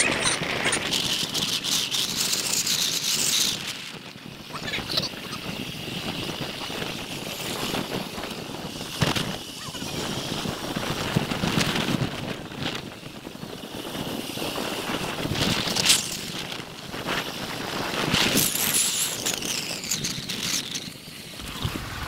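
Wind buffeting the microphone of a camera on a moving vehicle: an uneven rushing hiss that swells in gusts, with the vehicle's road noise underneath.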